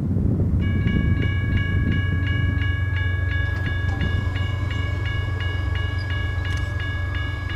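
Railroad grade-crossing warning bell starting to ring about half a second in, a rapid clanging at about three strikes a second that signals an approaching train. Under it runs a steady low rumble.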